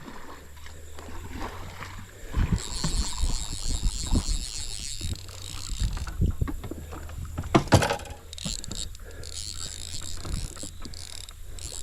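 Scattered knocks and bumps in a small fishing boat as a hooked fish is played, a sharper knock about eight seconds in, over a steady low hum. Twice, for a few seconds each, a high rapid whirring runs over it.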